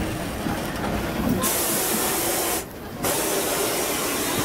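Steam hissing from the standing ČSD class 486.0 steam locomotive 486.007. A louder, sharper hiss starts about a second and a half in and cuts off suddenly after about a second. After a brief lull the steady hiss carries on.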